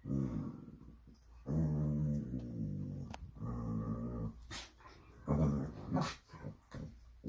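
Two dogs play-fighting, growling in long low rumbles that come and go, with a few sharp clicks between. They are wrestling and mouthing each other's faces, so the growls are play, not aggression.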